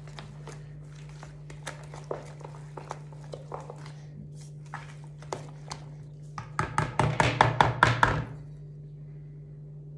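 Stainless steel balloon whisk beating a thick, sticky yeast dough in a plastic bowl, its wires clicking and scraping against the bowl in uneven strokes. About six and a half seconds in comes a short run of faster, louder strokes that stops abruptly near the end.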